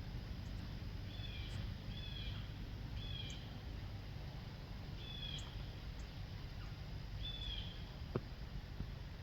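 A small bird calling outdoors: five short chirps, spaced a second or two apart, over a steady low rumble of background noise. A single sharp click comes near the end.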